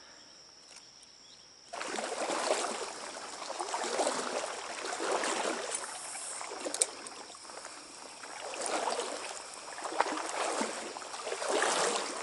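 Legs wading through stream water: a sloshing swish with each stride, swelling and fading every second or two. It starts suddenly about two seconds in, with a few light splashes and clicks along the way.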